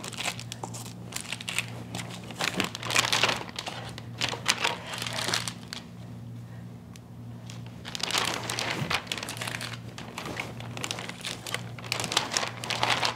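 Plastic zip-top freezer bag crinkling and rustling as frozen stuffed pasta shells are put into it, in irregular bouts with a quieter stretch in the middle, over a low steady hum.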